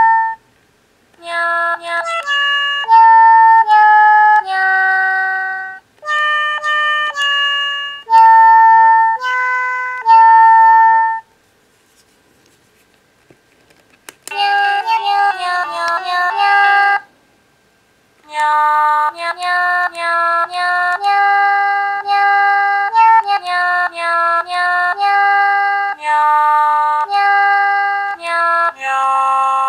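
Electronic sound chip of a light-up tiger animal stick toy playing short, simple tunes note by note. It stops for about three seconds in the middle, with a few faint clicks, then plays a quicker tune and another melody.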